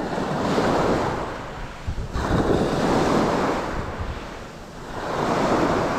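Small waves breaking and washing up the beach, the surf swelling and fading about three times, with wind on the microphone.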